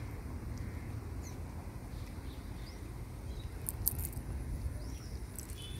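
Outdoor ambience: a steady low rumble, with a few faint high chirps and clicks near the middle.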